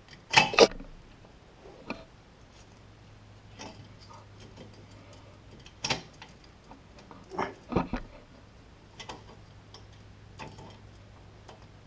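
Scattered metallic clicks and clinks from C3 Corvette parking brake shoes, retaining spring and pin being handled against the backing plate. The loudest pair of clicks comes about half a second in, with more around six and eight seconds.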